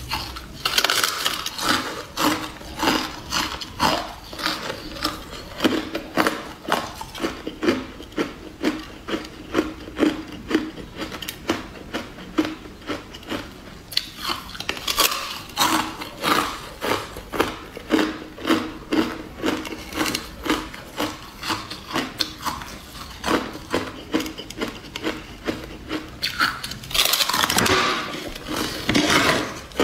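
Close-up crunching of ice: teeth biting off and chewing pieces of a frozen ice sheet, a fast run of sharp cracks a few each second. Louder, longer crunches come about a second in, halfway through, and near the end as bigger pieces break off.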